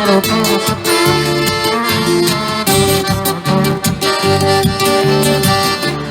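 Live acoustic band playing an instrumental passage of a song: held melody notes over a rhythmic strummed accompaniment.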